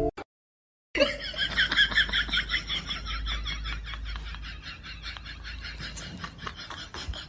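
A person laughing hard, a rapid run of short ha-ha sounds starting about a second in and gradually trailing off.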